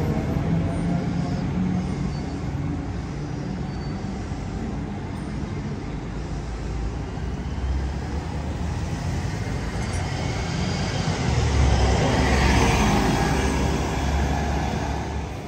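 Articulated city bus pulling away from a stop and driving past: a steady low engine rumble with tyre and road noise, swelling to its loudest about eleven to thirteen seconds in as the bus goes by, then fading as it moves off.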